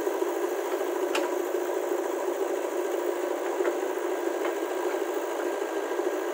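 A JCB 3DX backhoe loader's diesel engine running steadily while it works its backhoe arm, with the hitched tractor's engine running beside it. A single sharp click about a second in.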